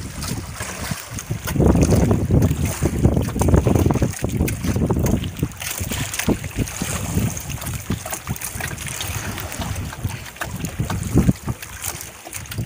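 Wind buffeting the microphone over water lapping at a small boat, with scattered small knocks. The wind gusts hardest from about a second and a half in to about five seconds.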